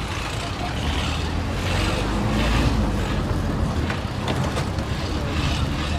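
Heavy vehicle or machinery engines running with passing traffic, swelling louder about two to three seconds in.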